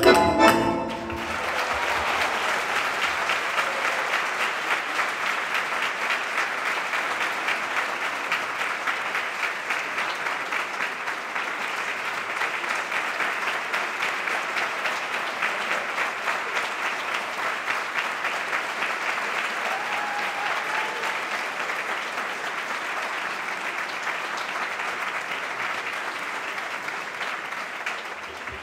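Audience applauding steadily for nearly the whole stretch, slowly fading near the end. The last chord of the bandoneon piece cuts off just as the applause begins.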